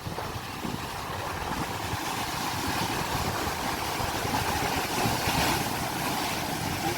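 Sea waves surging and washing, building up over the first few seconds, with a low rumble of wind on the microphone.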